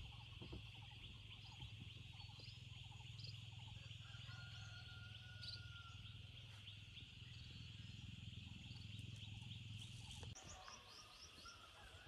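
Faint countryside ambience: a steady high buzz with scattered short bird chirps over a low rumble. The rumble stops about ten seconds in, and a quick run of falling chirps follows.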